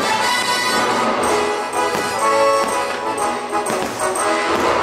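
Orchestral music with brass playing.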